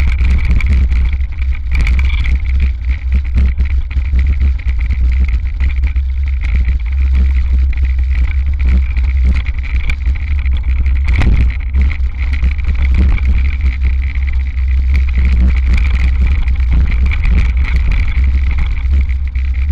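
Hardtail mountain bike rolling fast over a bumpy dirt trail, heard from a handlebar-mounted camera: a constant deep rumble of wind and frame vibration, a steady high hum, and frequent rattles and knocks from the bumps, with one sharper knock about eleven seconds in.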